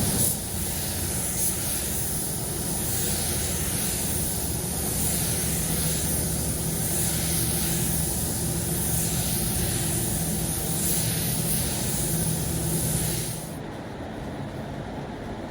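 Compressed-air paint spray gun hissing steadily as paint is sprayed, stopping about 13 seconds in while a low hum continues.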